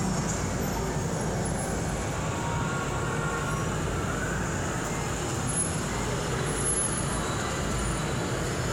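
Model passenger train running past on the layout track, a steady rumble of wheels on rails mixed with the hum of a large hall.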